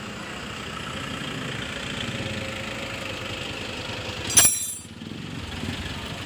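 A small engine idling steadily, with a fine low pulsing. About four seconds in there is one brief, loud metallic clatter.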